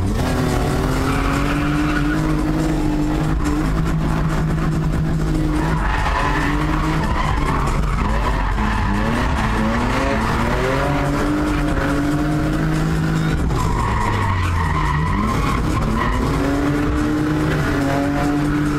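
BMW E36 drift car heard from inside the cabin: the engine's revs climb and drop over and over while sliding sideways. The tyres squeal in long stretches, briefly near the start, again about a third of the way in, and again past two-thirds.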